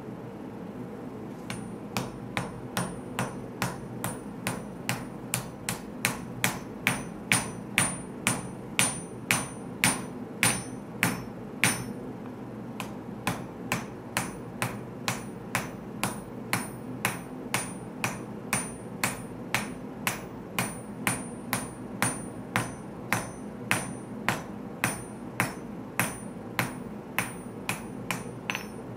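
Hand hammer forging a red-hot Damascus steel blade on an anvil: a steady rhythm of about two blows a second, each with a short metallic ring. There is a brief pause about twelve seconds in.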